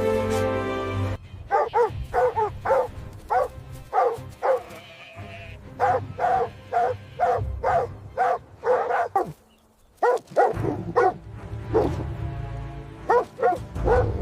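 A dog barking over and over, about two barks a second, with a brief break about two-thirds of the way through.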